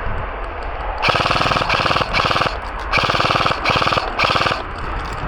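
Airsoft electric gun (AEG) firing on full auto: four quick bursts of rapid mechanical clatter, the first starting about a second in and the last ending near the end.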